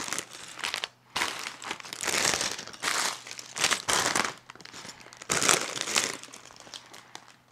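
Plastic bags full of Lego bricks crinkling as they are picked up, turned over and shuffled across a table, in repeated bursts with short pauses.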